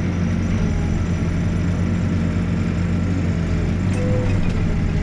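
Backhoe's diesel engine running steadily, with a brief faint tone about four seconds in.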